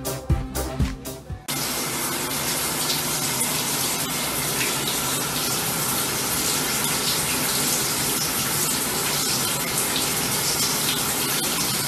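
A second and a half of music with a sharp beat, then a sudden cut to the steady hiss of a shower running on a tiled floor.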